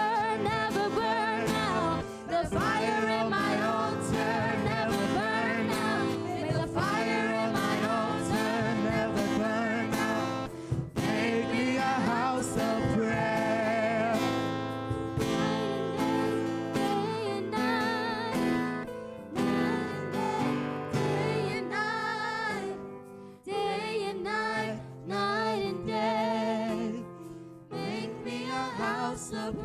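Worship song sung by several voices in harmony, with vibrato on held notes, over instrumental accompaniment.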